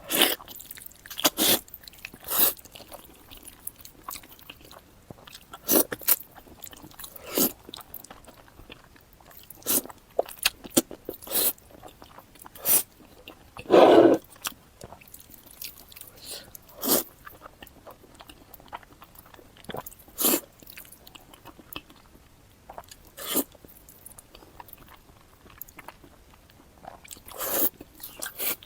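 Close-miked mouth sounds of someone eating instant noodles dressed in sesame paste: wet chewing and smacking in short, irregular bursts. There is a longer, louder one about halfway through.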